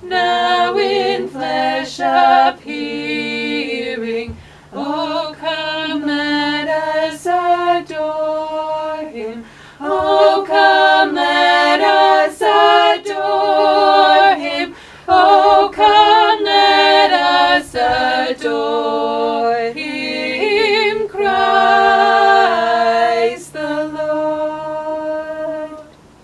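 A cappella singing of a Christmas carol by a small choir of unaccompanied voices, women's among them, sung in phrases with short breaks between them. The singing dies away just at the end.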